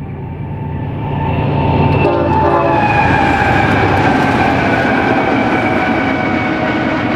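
BNSF freight train's diesel locomotives passing close by, with the air horn holding a long chord that slowly falls in pitch as the lead units go by, over the engines and the rumble of wheels on the rails. It grows louder over the first couple of seconds.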